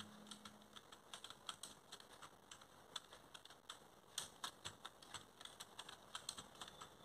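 Faint keystrokes on a computer keyboard, an uneven run of clicks a few a second, as a bottom-row typing drill is typed.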